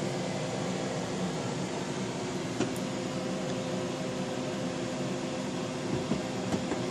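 Jägermeister tap machine's chiller running with a steady hum, plus a few faint knocks as a bottle is seated upside down in its holder.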